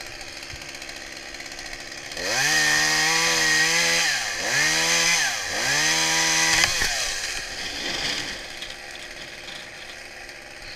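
Two-stroke chainsaw idling, then opened up to full throttle about two seconds in and held for several seconds with two brief dips in pitch, as it cuts through a limb. It drops back to idle near seven seconds in.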